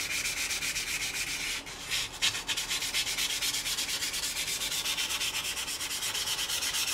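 400-grit sandpaper rubbed in quick, even back-and-forth strokes over the flat of a steel sashimi knife's blade. The scratching is roughening the mirror-polished face to a matte finish so that sliced fish will not stick to the blade.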